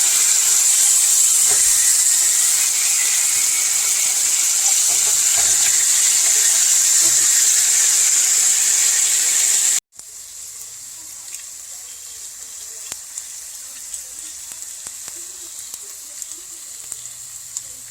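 Food frying in a hot pan, a steady sizzle with a hiss strongest in the high range. About ten seconds in it cuts off abruptly and resumes as a quieter sizzle with small scattered pops and crackles.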